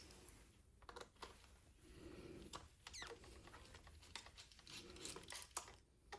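Faint clicks and light scraping of a small screwdriver working screws out of the plastic casing of a Meta Quest 3 headset, with a handful of sharp ticks scattered through.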